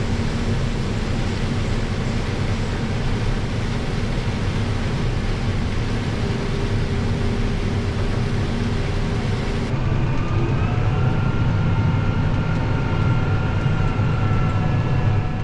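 Heavy farm harvest machinery running steadily, a loud low drone. About two-thirds of the way through the sound changes and a faint whine rises slowly.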